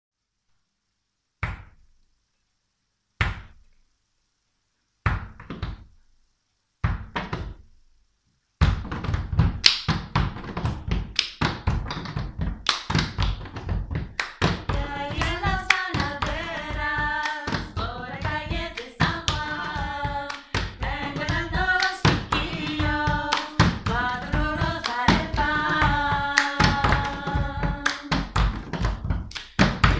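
Bare hands beating on a wooden floor as percussion: a few separate strikes a couple of seconds apart, then a fast, steady rhythm from about nine seconds in. About five seconds later three women's voices join over the beat, singing a panaderas folk song in close polyphonic harmony.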